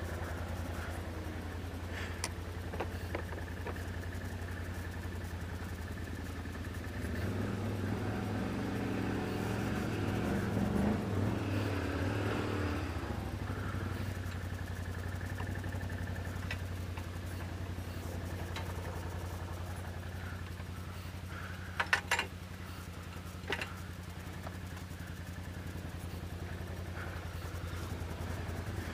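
2013 Can-Am Outlander 500 ATV's V-twin engine idling steadily, revving up under load for several seconds about a third of the way in while it tows a stuck Honda FourTrax 300 out of the mud on a strap. A few sharp knocks come near the end.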